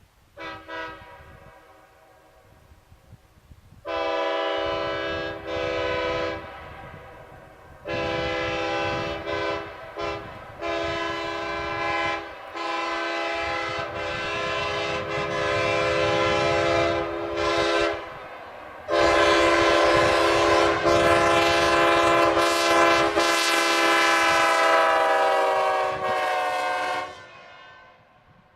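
Multi-chime locomotive air horn sounding a steady chord on compressed air: a run of short and medium blasts with brief breaks. About two-thirds of the way in comes one long, loudest blast of about eight seconds that tails off.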